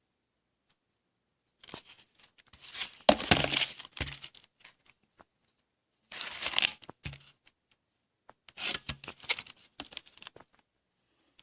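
Packaging of a memory kit being opened by hand: three bursts of tearing and crinkling, the first and loudest about two seconds in, with small clicks and taps between them.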